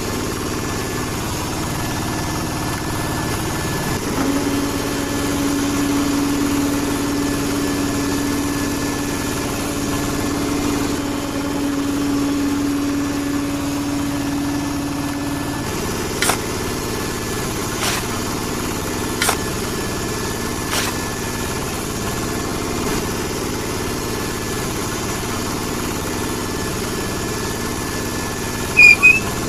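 Small electric motor of a toy concrete pump running with a steady hum. It carries a clear steady tone for about ten seconds from about four seconds in, then a few sharp clicks, and two loud clicks near the end.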